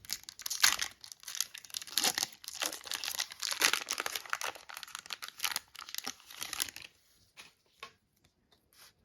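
Foil wrapper of a Pokémon trading-card booster pack being torn open and crinkled for about seven seconds, then a few faint light taps as the crinkling stops.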